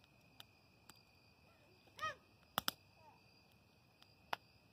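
Wood fire crackling with a few sharp pops. The loudest two come in quick succession about two and a half seconds in, and another sounds near the end. A brief high-pitched call is heard about two seconds in.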